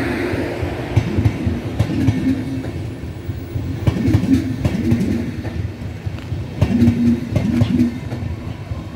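Passenger coaches of a departing Flixtrain rolling slowly past, their wheels knocking irregularly over rail joints over a steady low rumble, with a low hum that comes and goes.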